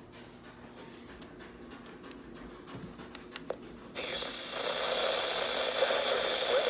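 Weather radio receiver: low hum with a few faint clicks, then about four seconds in a loud static hiss with a steady high whine cuts in suddenly.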